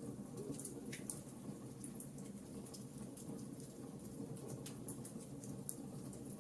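Campfire crackling: small sharp pops and snaps at irregular intervals over a steady low rush.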